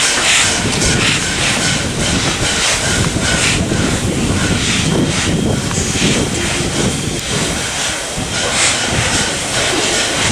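LNER A4 Pacific No. 4464 Bittern, a three-cylinder steam locomotive, moving slowly with its cylinder drain cocks open: rhythmic hissing steam beats about twice a second over a low rumble.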